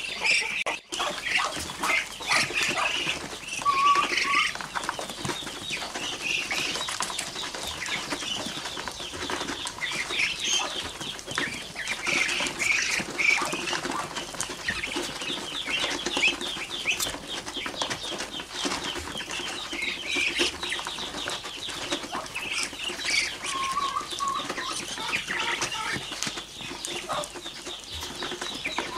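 A flock of young Muscovy ducks feeding: rapid clicking of many bills pecking at dry feed, with high peeping calls throughout.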